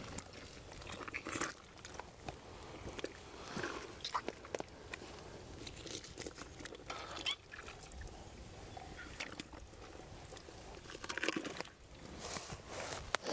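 Knife cutting and hands pulling tissue inside the opened body cavity of a freshly shot roe buck during the gralloch (field-dressing): an irregular string of short cutting, tearing and crunching sounds.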